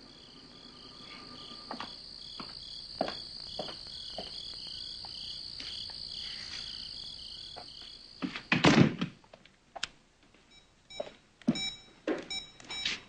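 Crickets chirping steadily for the first eight seconds. Then a loud thud about eight and a half seconds in, a door being shut. Several lighter clicks and knocks follow.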